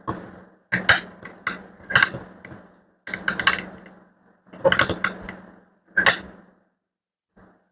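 Irregular clicks, knocks and clatter as a small hair clipper motor and its wired circuit board are handled and twisted apart by hand. The sound stops about two-thirds of the way in, leaving one small click near the end.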